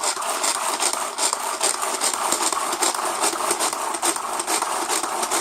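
Tupperware Power Chef pull-cord chopper being pulled over and over, its blades grinding whole almonds down to powder: a steady, loud, rasping churn made of rapid repeated strokes.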